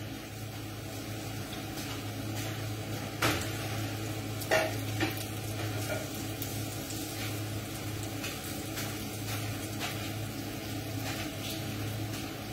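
Chicken hash sizzling lightly in a frying pan on a gas range, over a steady low hum, with two light knocks a few seconds in.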